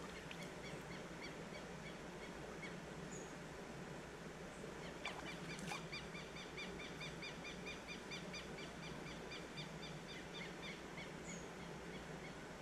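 A bird calling a long series of short, evenly repeated high notes, about three to four a second, strongest from about five seconds in, over the steady rush of a creek. A couple of sharp clicks stand out about five seconds in.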